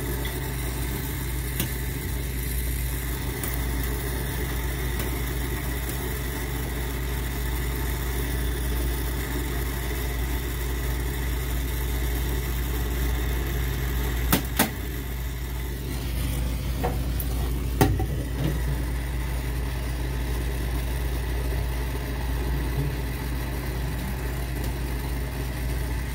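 A brazing torch flame burning steadily with a low continuous rush while the copper refrigerant line at the expansion valve is brazed. There are a few sharp clicks about halfway through and a few seconds after that.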